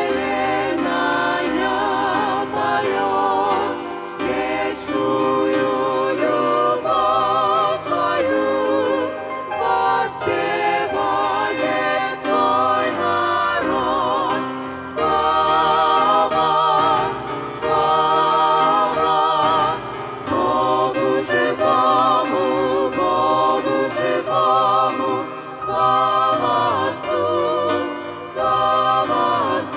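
A mixed group of men's and women's voices singing a Russian-language hymn together into microphones, with vibrato on the held notes and short breaths between phrases.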